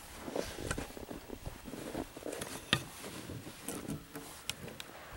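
Scattered light knocks and scuffs of axes and split hickory logs being handled, with one sharper knock about halfway through.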